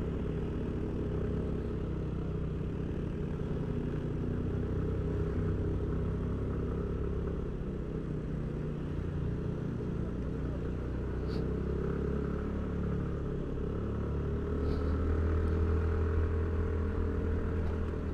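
Motorcycle engine running at a steady cruise on the road, with the low hum of another vehicle's engine swelling a little near the end.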